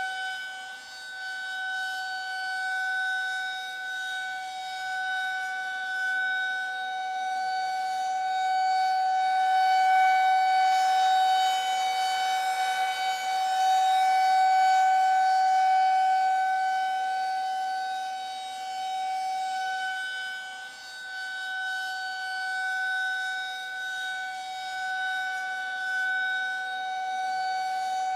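Air-raid siren sounding one steady held tone, its loudness slowly swelling and fading over several seconds.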